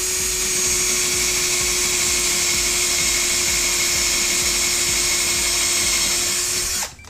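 Power drill running at one steady speed, drilling a hole into the wall, with an even motor whine that stops suddenly near the end.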